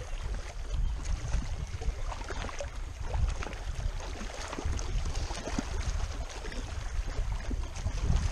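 Wind buffeting the camera microphone in an uneven low rumble that rises and falls, with small scattered ticks and water lapping at the rocky shore.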